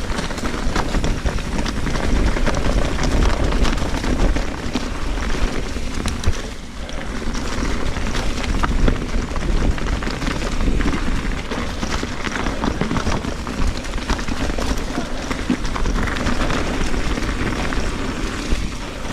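Wind buffeting the action camera's microphone during a fast mountain bike descent, with a steady deep rumble and a constant clatter of tyres and bike parts over rocky trail.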